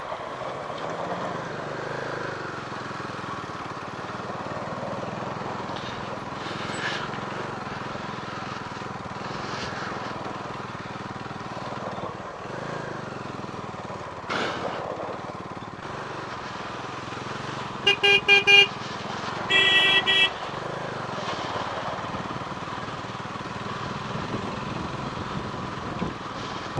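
Motorcycle on the move with steady engine and wind noise. About two-thirds of the way in, a horn gives four quick toots, then one longer blast, honking at a car ahead that is not letting the motorcycle pass.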